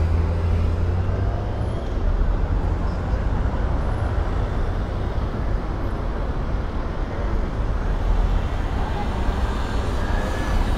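City street traffic: a steady rumble of passing vehicles, with one heavy engine close by at the start that fades away after about two seconds.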